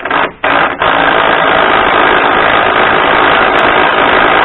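Power impact wrench run in two short blips, then held on in a steady rapid hammering rattle, running a nut down tight on a bolt.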